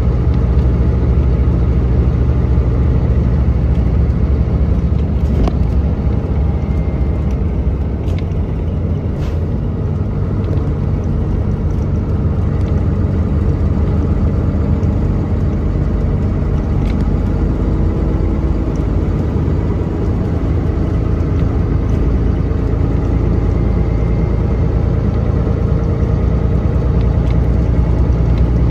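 Mercedes-Benz O405NH city bus engine running steadily under way, heard from inside the cabin as a deep, even drone. It eases off slightly about a third of the way in, with a few short rattles and clicks from the bus body.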